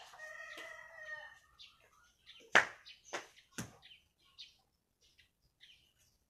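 A rooster crows once for about a second and a half, then three sharp knocks follow about half a second apart, the first the loudest.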